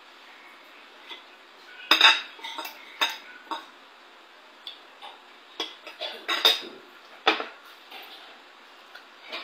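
Metal fork and spoon clinking and scraping against a ceramic plate in a run of sharp clinks and short scrapes. They start about two seconds in and are loudest near the start and again around six to seven seconds.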